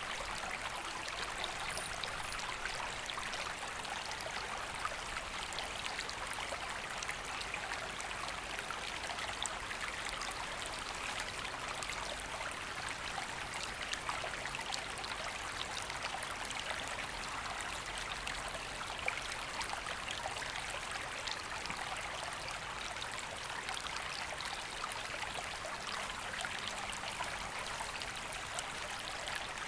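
A woodland river flowing steadily, a continuous even rush of water.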